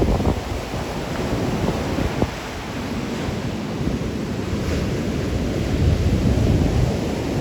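Rough storm surf breaking and washing on a rocky beach, a continuous rumbling wash. Wind buffets the microphone, with a few low thumps near the start.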